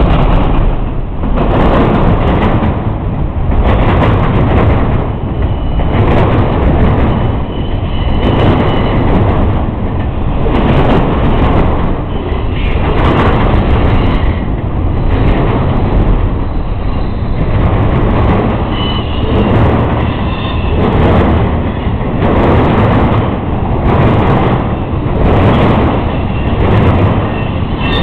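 Freight train rolling past at close range, autorack cars and then double-stack container cars: a loud, steady rumble with the wheels clacking over rail joints every second or so and a few brief, faint wheel squeals.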